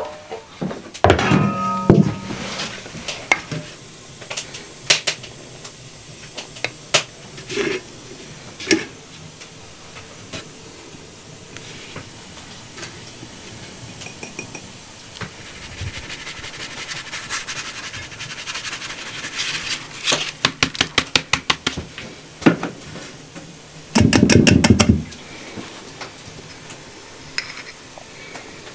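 Kitchen handling sounds of dishes and utensils: an enamel basin set down, scattered knocks and clinks, a quick run of light taps, and a short burst of noise about three-quarters of the way through.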